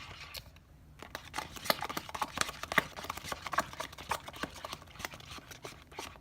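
Homemade slime being mixed, giving a dense, irregular run of small sticky clicks and crackles. The slime is jiggly and watery, not yet fully activated.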